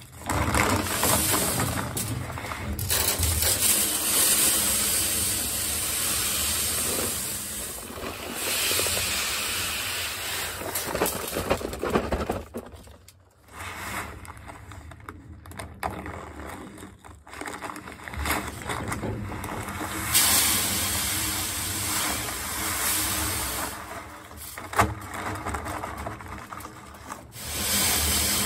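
Wheat seed poured from paper bags into the seed box of a John Deere 8300 grain drill: a steady hissing rush of kernels into the hopper, in several long pours with short breaks between bags.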